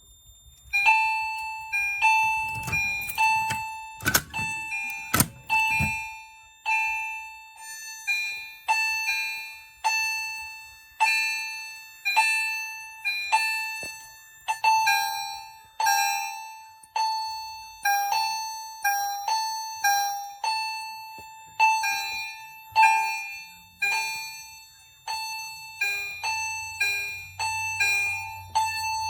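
Fire alarm chime strobes, EST among them, ding repeatedly in alarm after a manual pull station has been activated. Several units ring slightly out of step, so the decaying chime tones overlap. There are a few sharp knocks in the first few seconds.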